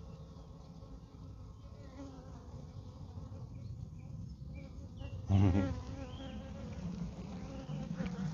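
Honeybees on an open mating-nuc frame, humming steadily as a colony. About five seconds in, the buzz grows louder for a moment.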